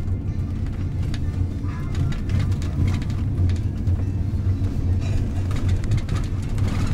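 Steady low rumble of a car driving, heard from inside the cabin, with faint music playing over it.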